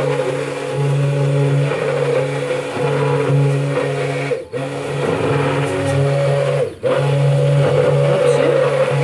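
Stainless-steel immersion blender running steadily in a tall beaker, emulsifying garlic, egg and olive oil into alioli. The motor hum cuts out briefly twice, about four and a half and nearly seven seconds in.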